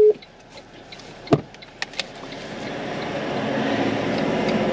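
A knock and a couple of light clicks inside a 4WD's cabin, then the engine and running noise of the vehicle rising steadily as it pulls away.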